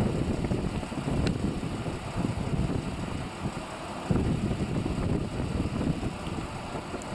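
Wind buffeting the microphone outdoors: an uneven, gusty low rumble with no steady engine tone.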